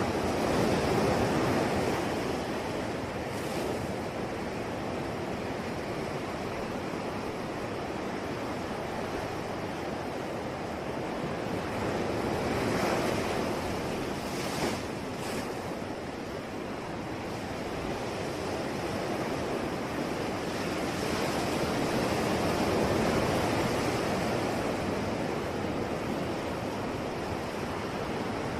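Ocean waves washing onto the shore in a steady rush of surf. Three larger waves swell and recede: one about a second in, one around the middle and one near the end. A brief sharp tick sounds about halfway through.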